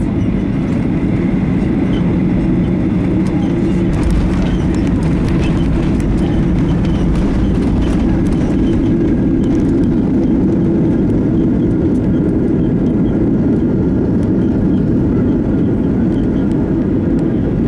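Landing of a Boeing 737-800 heard from inside the cabin: a thump about four seconds in as the wheels touch down, then the loud, steady rumble of the engines and the wheels rolling on the runway, with occasional knocks.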